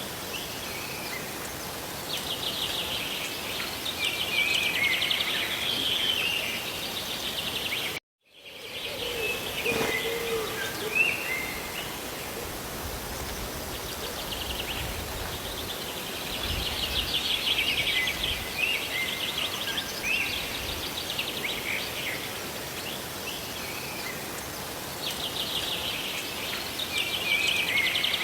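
Steady hiss of rain and falling water, with songbirds chirping in rapid trills that come and go every several seconds. About eight seconds in, the sound cuts out completely for a moment, and there is a sharp click a few seconds later.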